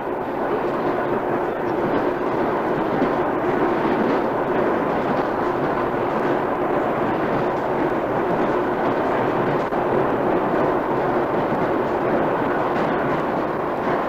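Steady rumble and rattle of a moving passenger train, heard from inside a carriage with wooden benches.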